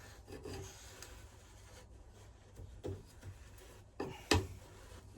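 Faint rubbing and scraping as packing and the heating element are worked loose inside an electric melting furnace, with a few sharp knocks, the loudest a little past four seconds in.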